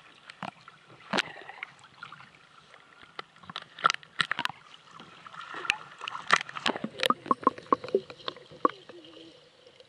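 Lake water splashing and lapping against a camera held at the surface, with irregular sharp taps and splashes, turning to gurgling bubbles as it dips under near the end.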